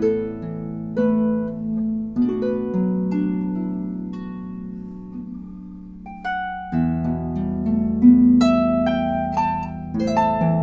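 Blevins Riversong 36-string lever harp playing an Irish folk tune: plucked notes and chords that ring on and slowly fade. The notes die away through a long held pause before a low chord comes in about two thirds of the way through and the melody picks up again.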